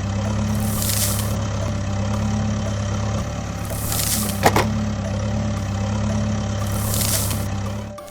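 A vehicle engine idling with a steady low hum, with a short hiss about every three seconds and a single click midway; it cuts off near the end.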